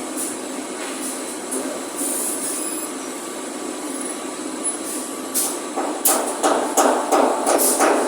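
A steady hiss, then from about six seconds in a run of sharp taps, roughly three a second.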